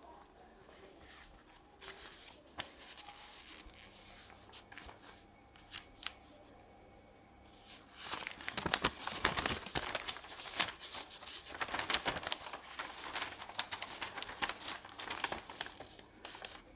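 Crinkling and rustling of a board game's paper sheets and plastic packaging being handled: faint at first, then busy and louder from about halfway through.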